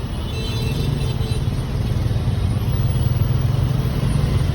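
Large tour bus diesel engine running close by: a steady low rumble that grows slightly louder after about a second.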